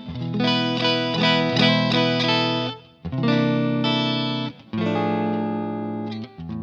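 Seven-string multi-scale electric guitar with a high A string and single-coil pickups: a quick run of picked notes, then a few ringing chords with short breaks between them.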